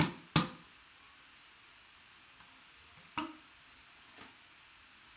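Hollow knocks of a poster tube being handled: two quick knocks at the start, one more about three seconds in, and a faint one shortly after.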